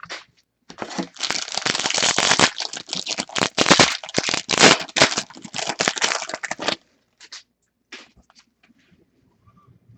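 Foil trading-card pack wrapper being torn open and crinkled for about six seconds, then faint light ticks of cards being handled.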